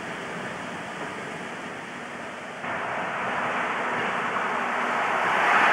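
English Electric Class 50 diesel locomotive, with its 16-cylinder English Electric engine, approaching at speed with a passenger train. The sound jumps up sharply a little under halfway through and then keeps growing louder as the train nears, with a steady engine note under the rush of noise.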